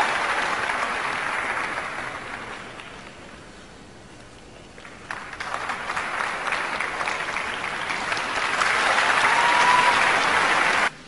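Arena crowd applauding: the clapping dies down for a couple of seconds, swells again about five seconds in, and cuts off abruptly near the end.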